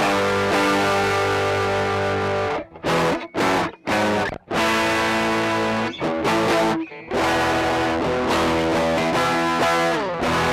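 Electric guitar played through a pedalboard: sustained chords ring out, then several short, choppy stabs with brief silences between them about a third of the way in, then held chords again with a downward slide near the end.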